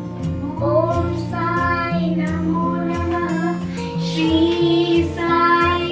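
A song playing: a high singing voice holding and sliding between notes over steady bass notes and a light, regular beat.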